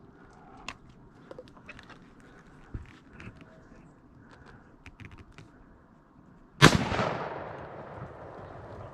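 A single loud gunshot from a deer hunter's gun, about six and a half seconds in, echoing away over about two seconds. It is preceded by faint clicks and rustles.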